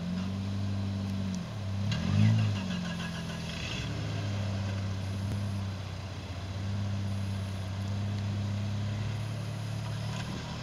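Off-road vehicle engines running steadily under load while towing a stuck vehicle out of a rut. About two seconds in, one revs briefly, its pitch dipping and then rising, with a light rattle just after.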